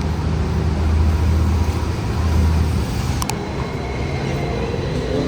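Steady low drone of a vehicle in motion, with a sharp click a little over three seconds in.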